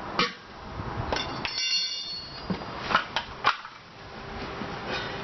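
Metal tools clanking against the steel wire-spoke wheel rim during hand tire removal: about six sharp knocks, one of which leaves a metallic ring for about a second.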